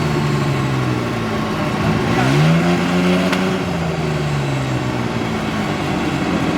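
Off-road 4x4's engine revving: it falls away just after the start, then climbs sharply about two seconds in and slowly sinks as the revs drop.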